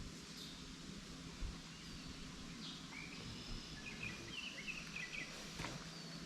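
Small birds chirping, a quick run of short high calls in the middle, over a faint steady outdoor background with a low hum underneath.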